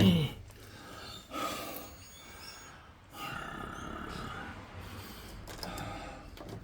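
A person's heavy breathing: a short falling grunt at the start, then three long, noisy breaths out, each lasting about a second.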